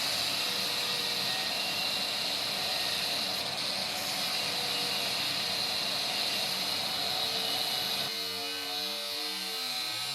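A running forge makes a steady, even rushing noise. About eight seconds in, background music with plucked notes takes over.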